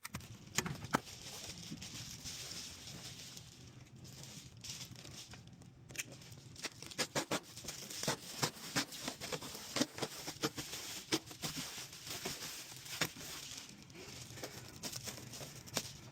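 Scattered clicks, taps and rustling of hands-on work, over a steady hiss.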